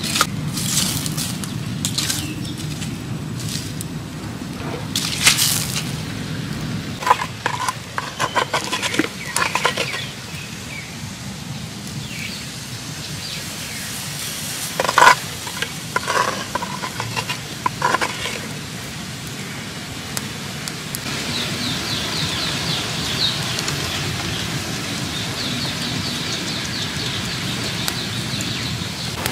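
Frogs roasting on bamboo skewers over a charcoal fire: a steady low fire sound with scattered sharp pops and clicks, the loudest about five and fifteen seconds in. From about three quarters of the way through, a fast, high, rhythmic chirping joins it.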